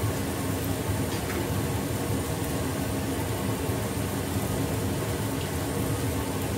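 Steady fan-like rushing noise at a gas stove, with burners lit under a wok of greens and a frying pan of omelette. A faint tick or two of a ladle comes about a second in.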